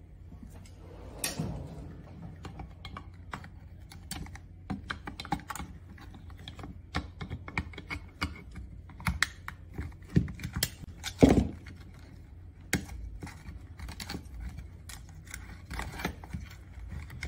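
Hands handling a plastic scooter handlebar housing and its wiring: irregular clicks, taps and knocks of plastic parts and cable connectors, with a louder knock about a second in and another about eleven seconds in.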